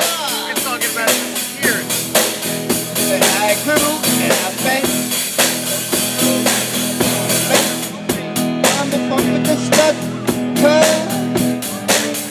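A live rock band playing: a drum kit keeping a steady beat under electric guitar, with a singer on the microphone.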